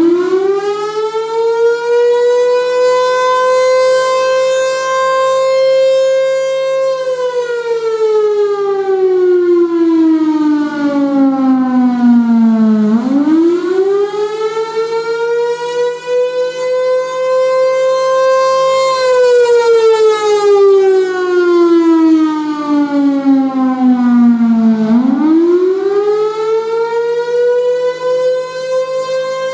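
Federal Signal Thunderbolt 1000 storm siren, its Roots blower feeding a single-tone chopper, sounding loudly in a wail: the pitch climbs quickly, holds high for a few seconds, then slides slowly down, twice over, and climbs again near the end.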